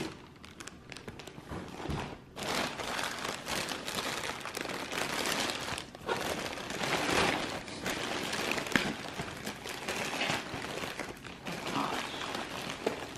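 White plastic packaging crinkling and rustling as it is pulled and torn open by hand to unwrap an item, starting about two seconds in and going on irregularly.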